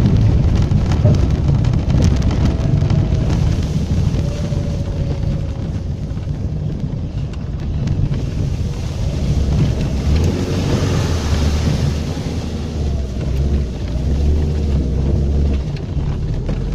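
Lada VAZ-2110 car driving through a wet, muddy field: a heavy low rumble of engine and tyres in the mud, with a spattering hiss that swells about ten seconds in.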